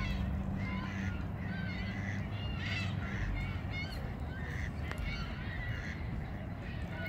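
A chorus of birds calling: many short calls, several a second, from a number of birds at once, over a low steady rumble.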